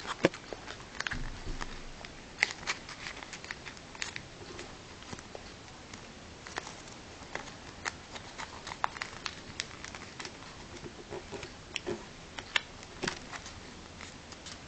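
A sheet of origami paper being folded and creased by hand: irregular soft crackles and clicks as the paper is bent and pressed.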